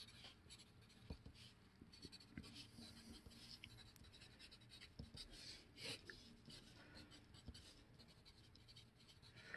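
Faint scratching of a wooden pencil writing on paper, in many short strokes with small ticks as the lead touches down.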